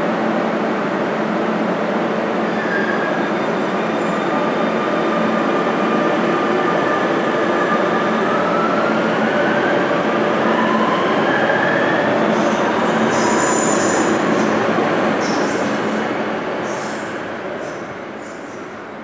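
Series 9000 Alstom Metropolis metro train pulling out of the station and accelerating, its motors giving a rising whine over steady wheel and rail noise. Brief high wheel squeals come in the second half, and the sound fades away over the last few seconds as the train leaves.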